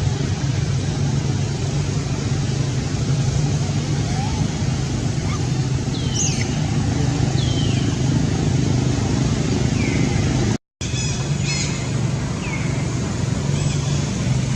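A steady low motor hum, with a few short high chirps that fall in pitch scattered through it, and a brief total drop-out about ten seconds in.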